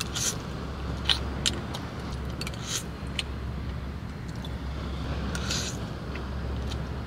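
Eating utensil clicking and scraping against a camp cooking pot several times, with a few short hissy slurps, over a steady low rumble.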